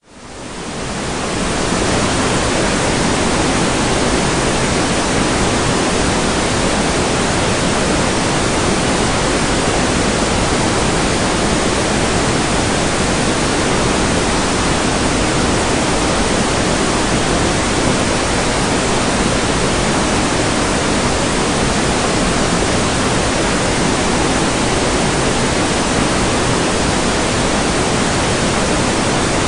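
Steady, even rushing hiss spread evenly from the lows to the highs, fading in from silence over the first two seconds and then holding constant.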